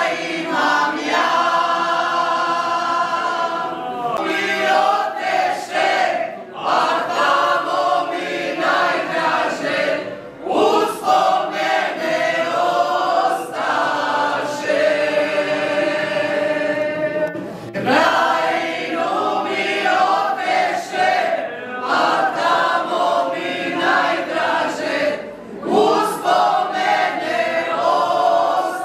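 A folk singing group, mostly women's voices, singing a song together a cappella. The sung phrases last several seconds each, with short breaks for breath between them.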